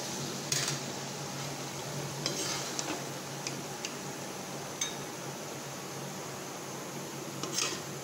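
A metal slotted spoon scoops wet pork stew out of a metal kadai into a serving bowl. It gives a few scattered clinks and scrapes against the pan and bowl over a steady low hum.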